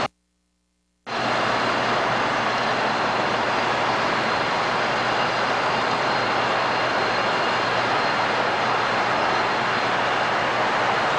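O scale model passenger train running on the layout track, a steady, even rolling noise from its motor and wheels on the rails. The sound cuts out completely for about the first second, then returns at full level.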